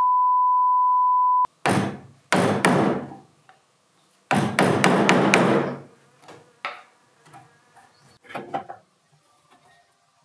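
A steady high-pitched beep for about a second and a half, cut off abruptly. It is followed by hammer blows on a steel claw-type nail puller driven into an oak board to dig out old nails, with a quick run of strikes near the middle. Lighter clicks and scrapes come after, as pincers grip and lever a nail out.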